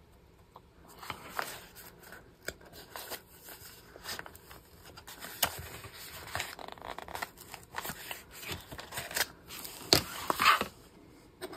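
Folded paper pages being handled, turned over and opened, rustling with scattered light taps and clicks; the rustling is louder about ten seconds in.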